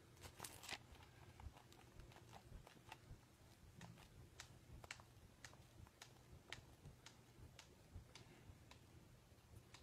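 Near silence: quiet room tone with faint, scattered small clicks and ticks.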